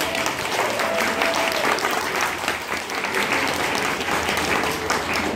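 Applause: a group clapping hands, children among them, a dense patter of claps.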